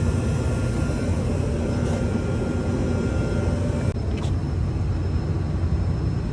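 Steady low mechanical drone, with a faint click about four seconds in.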